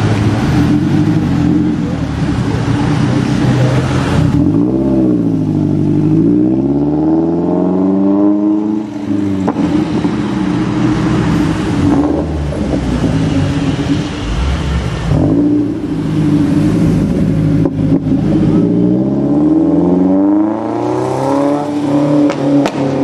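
Lotus Elise Club Racer with a Larini exhaust accelerating, loud. The engine note twice drops and then climbs steadily as the revs build.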